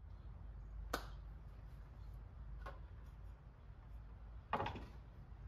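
Quiet garage room tone: a low steady rumble with a sharp click about a second in, a fainter click later, and a short louder knock near the end, as a cordless circular saw is picked up and handled. The saw is not running.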